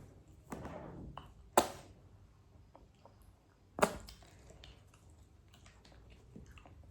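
Food and tableware being handled at a table: a short rustle about half a second in, then two sharp clicks about two seconds apart, with faint small ticks between.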